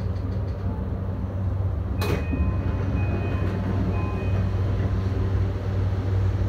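JR Yamanote Line electric train standing still, its onboard equipment giving a steady low hum. A single sharp click comes about two seconds in.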